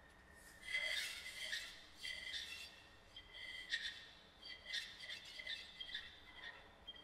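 Experimental live sound score: a faint steady high tone with irregular bursts of high, squeaky, whistle-like sounds, about a dozen clusters.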